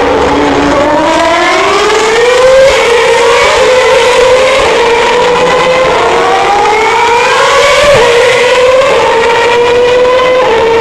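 2011 Formula One cars' 2.4-litre V8 engines accelerating past at high revs, one car after another. The pitch climbs repeatedly, and there is a sudden drop at each upshift, twice in the second half.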